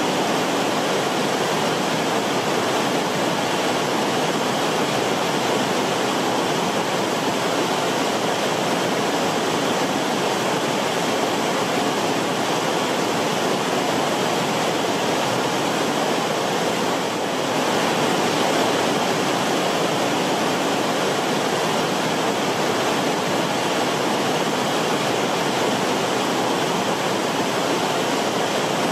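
River water rushing steadily: a dense, even wash of flowing-water noise, dipping slightly for a moment about two-thirds of the way through.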